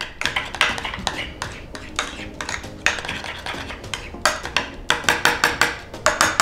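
Metal spoon stirring a thick mayonnaise-based dip in a small glass bowl, with many quick clinks and scrapes against the glass.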